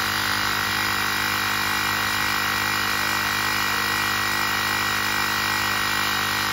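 Baseus portable cordless tyre inflator running, its small electric air compressor pumping up a motorbike tyre with a steady hum over a hiss.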